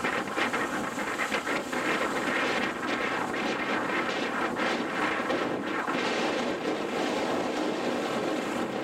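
Storm wind blowing over a choppy sea: a steady rushing noise that swells and eases in gusts.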